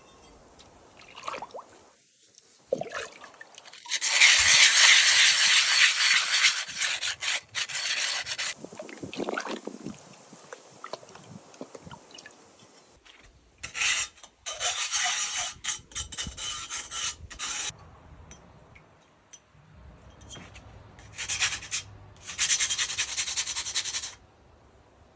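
Bisque-fired pottery being sanded, rough rubbing strokes in three spells, the first and longest near the start. The sanding takes off dust and rough bits so the glaze will settle evenly.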